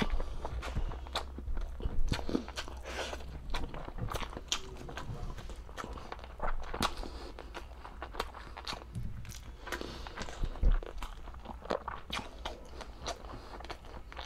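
Close-miked eating of soft braised pork humba and rice: chewing with wet smacks and irregular mouth clicks, several a second.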